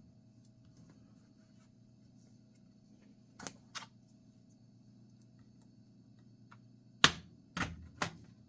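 Plastic snap clips of a laptop's case popping loose as the case is pried apart: two faint clicks about three and a half seconds in, then three sharp snaps about half a second apart near the end. A faint low hum runs underneath.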